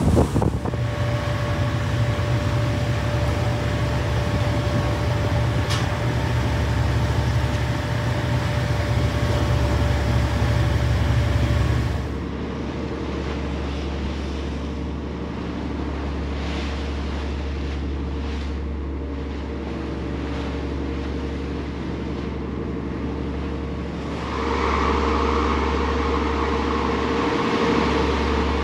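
Boat engine running steadily at sea, a constant droning hum. About twelve seconds in the sound changes abruptly to a quieter, duller drone, and a higher hum joins it near the end.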